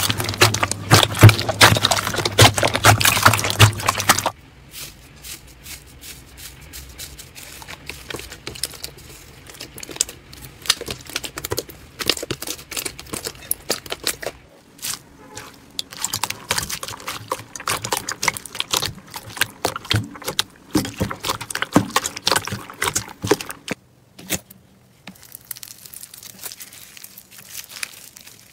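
Slime being handled and squeezed with hands, giving a dense run of crackling clicks and pops. The sound is loud in the first four seconds, then quieter, sparser clicking.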